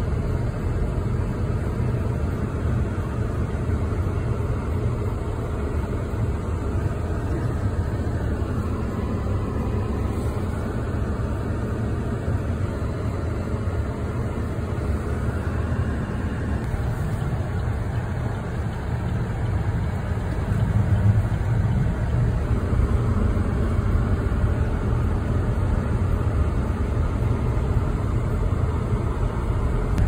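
Car driving on snow-covered roads, heard from inside the cabin: a steady low rumble of engine and tyres, growing a little louder about two-thirds through.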